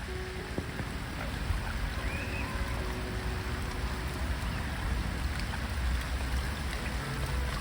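Steady rain hiss with a low rumble underneath and a faint high chirp about two seconds in.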